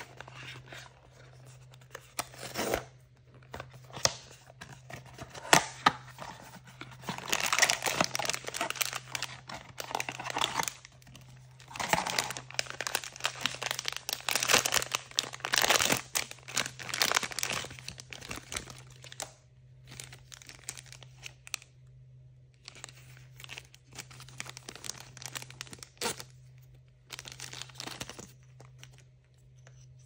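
Packaging being torn open and crinkled by hand, in bursts of tearing and rustling with small clicks, most continuous through the middle of the stretch and sparser near the end.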